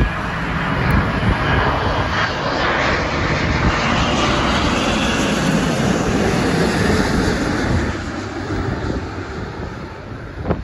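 Jet engines of a British Airways Boeing 777-200ER on low final approach, passing close overhead. The rushing jet noise swells in the first second or so, holds, then fades after about eight seconds.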